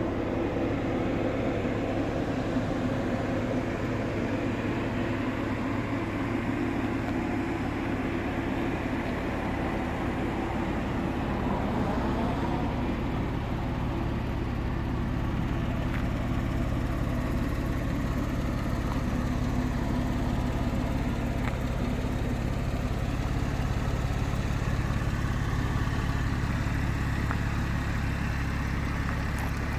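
Electric machine polisher running steadily, a continuous motor hum with a few steady low tones and a whirring noise above them.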